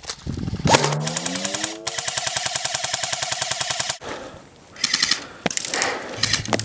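Airsoft electric rifle firing on full auto: a rapid, even clatter from the gearbox and shots, with a rising whine as the motor spins up. One burst of about three seconds is followed by two shorter bursts.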